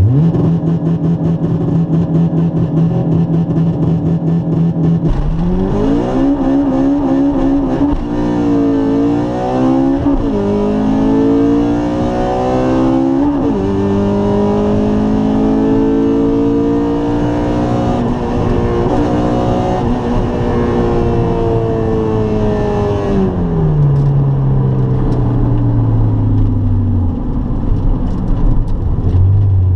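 Honda Integra's four-cylinder engine, heard from inside the cabin. It is held at steady raised revs for about five seconds, then launches hard and revs up through the gears, dropping in pitch at each of three quick upshifts. It then pulls in a high gear before the revs fall away as the car slows near the end.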